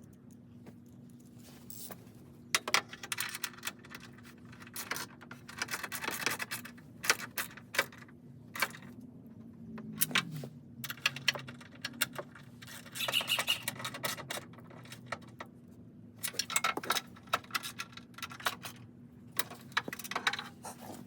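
Small metal hardware and hand tools clinking and rattling: nuts, bolts and a socket handled against the frame in scattered clicks and jingles, over a steady low hum.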